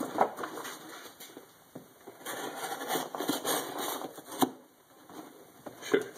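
Knife blade slicing through a cardboard shipping box, a scratchy rasping cut lasting a couple of seconds, then cardboard flaps being bent and pulled open, with a few sharp knocks.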